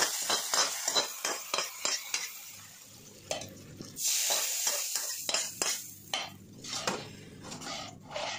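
A metal spoon scraping and tapping hot onion tempering out of a pan into sambar, with sizzling as the hot oil hits the liquid, about four seconds in, then a spoon stirring and clinking in the pot.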